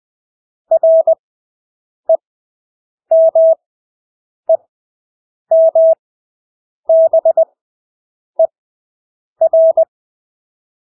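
Morse code (CW) practice tone: a single steady pitch keyed in dots and dashes at 20 words per minute, with long Farnsworth gaps between characters. About eight characters are sent, roughly one a second, with silence between them.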